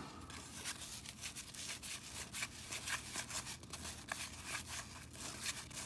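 Cardboard baseball cards being thumbed through one by one from a pack, sliding and flicking against each other in a run of soft, irregular clicks and rubs.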